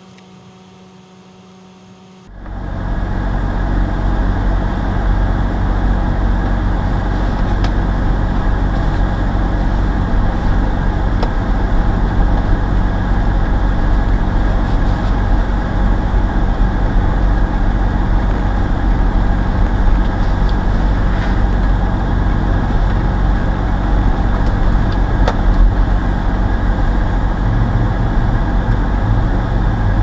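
Steady engine and tyre noise inside a moving car on a snow-covered road, a loud even rumble that cuts in abruptly about two seconds in after a faint hum.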